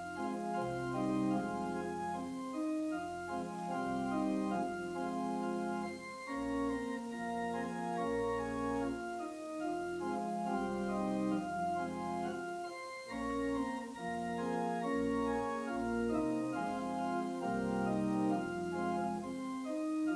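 Church organ playing a slow piece in held chords over a low bass line.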